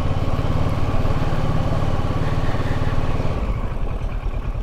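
Kawasaki Versys 650's parallel-twin engine running at low revs as the motorcycle rolls slowly. Its note drops lower about three and a half seconds in.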